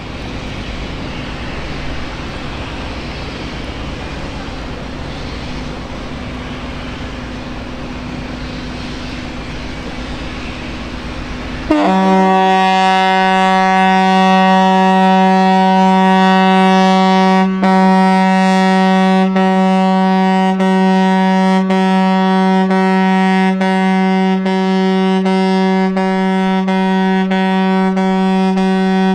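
River cruise ship Lunnaya Sonata's horn sounding one loud, long, steady blast as a farewell signal. It starts suddenly about twelve seconds in, after a steady rushing background noise.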